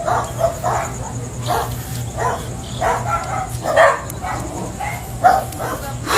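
A dog barking repeatedly, about a dozen short barks at an irregular pace.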